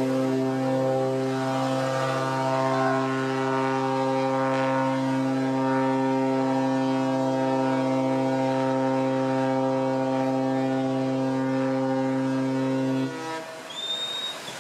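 Ship's horn sounding one long, steady blast that cuts off about thirteen seconds in. A short rising whistle follows near the end.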